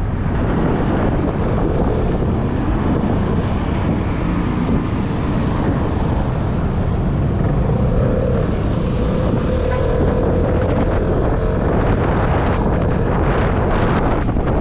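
Wind rushing over an action-camera microphone on a moving Vespa S125 scooter, with the scooter's engine and road traffic running underneath. A humming tone comes up for a few seconds past the middle.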